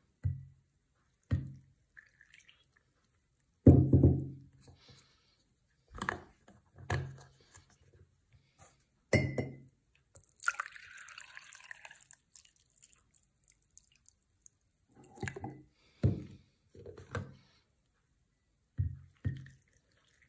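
Glass carafe and teapot knocking and clinking against each other about a dozen times as brewed green tea is poured back and forth between them. A short rush of pouring liquid comes about halfway through.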